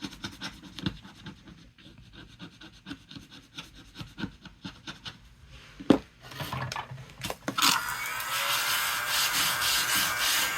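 Rapid, uneven rubbing strokes on a paper card, as when scratching or colouring in a savings chart by hand, with a sharp knock about six seconds in. A louder steady hiss takes over near the end.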